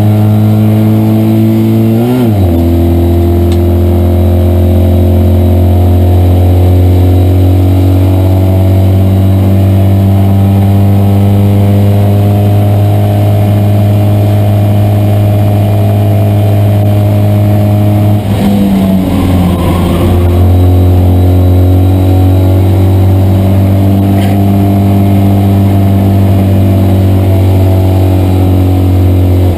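Citroën 2CV race car's air-cooled flat-twin engine running hard at near-steady high revs, heard from inside the cabin. There is an upshift about two seconds in, and a brief lift around eighteen seconds in, where the pitch dips and wavers before the engine pulls steadily again.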